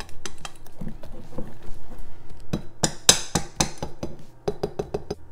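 A utensil clinking and scraping against a stainless steel mixing bowl while stirring thick chocolate banana batter: an irregular run of taps and clicks, busiest around the middle.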